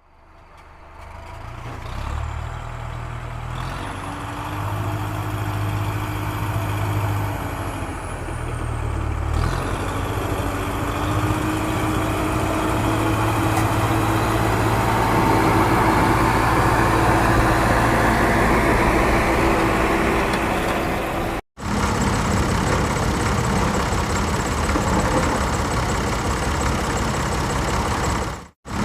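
A small motor running steadily, fading in at the start, with a fainter whine that bends up and down in pitch. It cuts out suddenly twice, for a moment each time, near the end.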